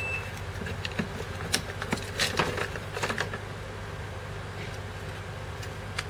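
A cardboard medicine carton and its foil-sealed blister pack being handled, with scattered crinkles and clicks, most of them in the first half. A steady low hum runs underneath.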